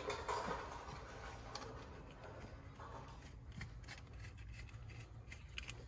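Faint handling sounds of hands fitting the aluminium intake pipe in the engine bay: light rubbing with scattered small clicks and taps.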